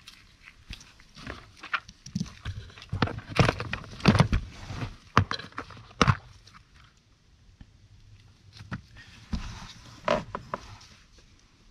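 Handling noise: irregular clicks, knocks and rustles as a plastic compartment case of heat-shrink tubing is set down on the carpeted floor and its lid opened. It is busiest in the middle and again briefly near the end.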